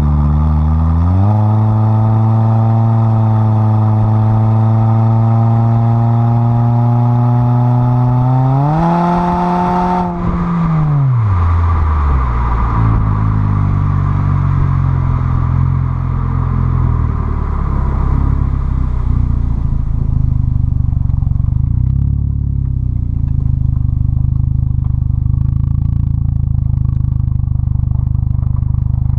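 2010 Ford Fusion's 2.5-litre inline-four exhaust note through a custom exhaust, heard at the tailpipes while driving: the revs climb a little about a second in, hold steady, climb again around nine seconds, then fall off sharply as the throttle is lifted and settle into a lower steady drone. Near the end scattered clicks of gravel under the tyres join it.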